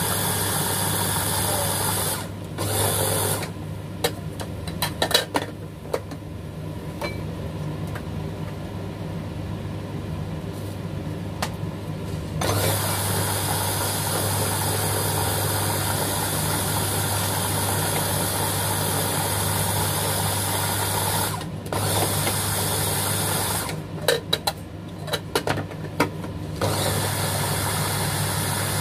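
Electric mini food chopper's motor running steadily as it purees vegetables. Twice it drops quieter for several seconds, once from about 4 to 12 seconds in and again near the end, and a few sharp clicks sound in those stretches.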